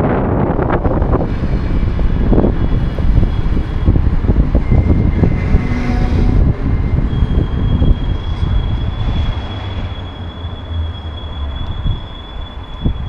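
NS double-deck passenger train rolling past: a steady low rumble of wheels with repeated clatter over the rails. A faint high steady whine joins in the second half, and the sound eases a little near the end.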